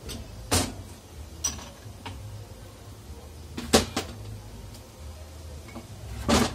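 Metal transmission parts knocking against a steel workbench as they are handled and set down: four separate knocks, the loudest near the middle and near the end.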